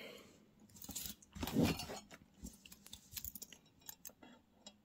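Large hammered metal necklace links and their small jump rings clicking and clinking faintly as the necklace is handled, with one louder soft handling noise about a second and a half in.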